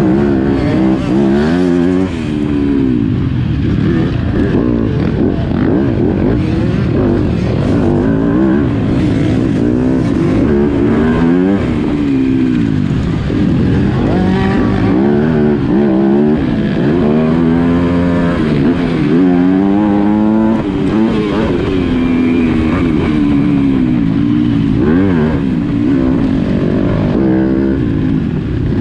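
Yamaha motocross bike engine revving hard and backing off over and over as it is raced, its pitch rising and falling every second or two.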